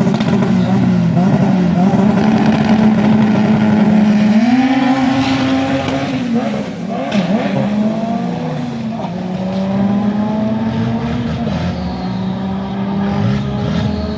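Race car engine at a drag strip, revved up and down several times and held at high revs, with its pitch climbing once midway and dropping back. Fainter engines rise in pitch behind it.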